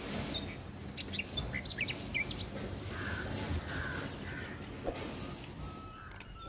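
Outdoor ambience: small birds chirping in short, sharp calls, most of them in a quick flurry about a second in, over a steady low background rumble.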